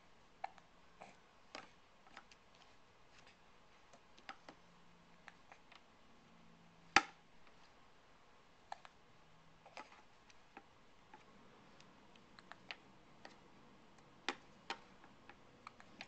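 Scattered light clicks and taps at irregular intervals, with one much louder sharp click about seven seconds in.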